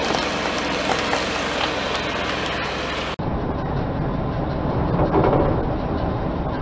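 Car engine running close by, its tyre edging over a gritty concrete floor, a steady rumbling noise that changes abruptly about three seconds in. Around five seconds in there is a brief, slightly louder crackling.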